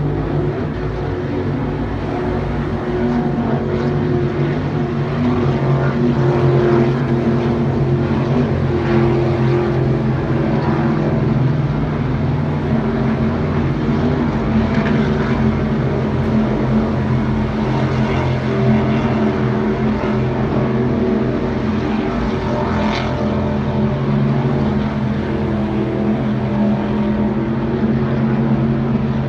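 Offshore racing powerboats' engines running at speed, a steady drone of several overlapping pitches.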